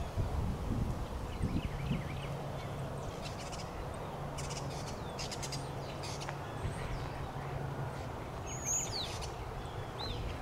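Birds calling with short, high chirps and a clearer swooping call near the end, over a low steady outdoor rumble with a faint hum.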